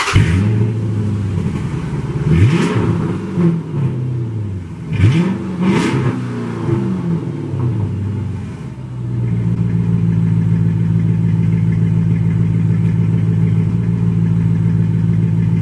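Car engine starting, revved several times, then settling into a steady idle about nine seconds in.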